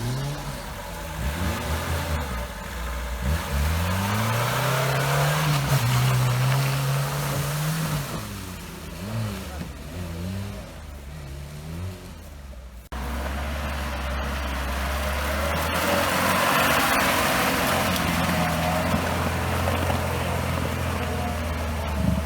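Off-road 4x4 engine revving hard, its pitch rising and falling repeatedly as the vehicle works through deep mud. About thirteen seconds in, the sound cuts off abruptly and the engine continues at steady, high revs.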